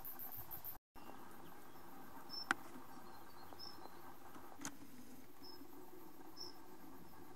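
Faint outdoor ambience of insects, crickets chirring high-pitched with short chirps repeating about once a second. Two sharp clicks come a couple of seconds apart in the middle, and the sound drops out briefly near the start.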